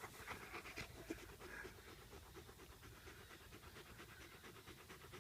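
Gordon setter panting in a quick, even rhythm, winded after a run; the breathing is faint.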